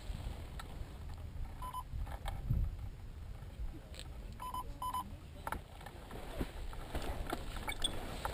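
Wind buffeting the microphone, with three short electronic beeps about a second and a half, four and a half and five seconds in, from the hang glider's variometer on the control frame. Small handling clicks from the glider's frame come through now and then.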